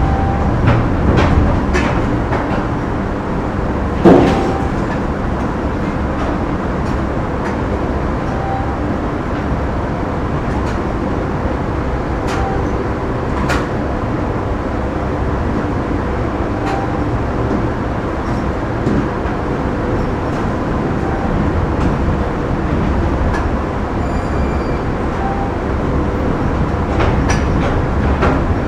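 Factory machinery running: a dense, steady mechanical rumble with a faint constant hum, scattered knocks and clanks, and one loud metallic clank about four seconds in. A short faint tone recurs every few seconds.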